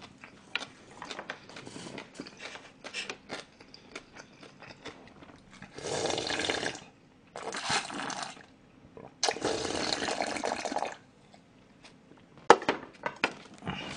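Close-up mouth sounds of chewing with small wet clicks, then three long slurps of jjamppong broth drunk straight from the bowl. A sharp knock follows near the end.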